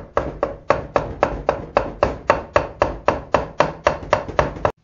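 Rubber mallet striking the sump cover of a small engine in rapid, even blows, about four a second, to break the stuck cover loose from the crankcase. The blows come a little faster near the end and stop suddenly.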